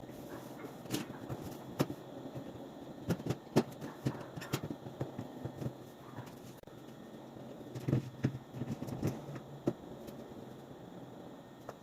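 Scattered light knocks and clicks at irregular intervals, as of objects being handled and set down, with a cluster of louder knocks about eight seconds in, over a low steady hum.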